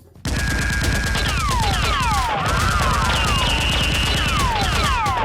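Rapid automatic gunfire sound effects, starting about a quarter second in and firing continuously. Repeated falling whistles run over the shots.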